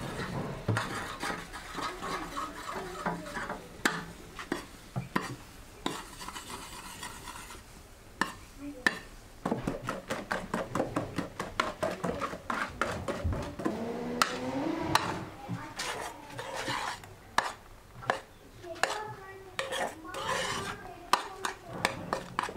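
Metal spoon and whisk stirring and scraping in a small frying pan and a plastic mixing bowl, with many quick clinks of metal against the pan and bowl.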